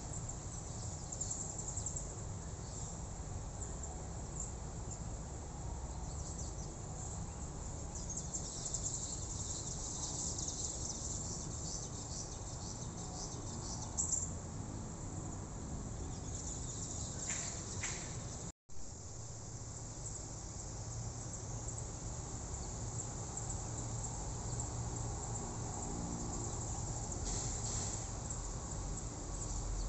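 Insects chirring in a dense high-pitched chorus, with occasional bird chirps and a steady low rumble underneath. The sound cuts out for an instant about two-thirds of the way through.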